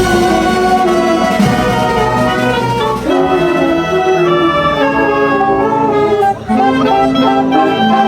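A wind band playing held chords in its brass, the notes changing every second or so, with a brief break about six and a half seconds in.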